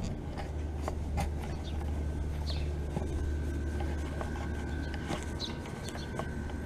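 Outdoor heat pump units running with a steady low hum; a thin high whine joins about three seconds in, with a few light clicks scattered through.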